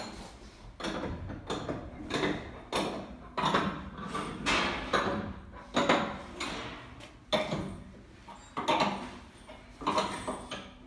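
Footsteps on a concrete floor, about one every two-thirds of a second, with a brief pause partway through.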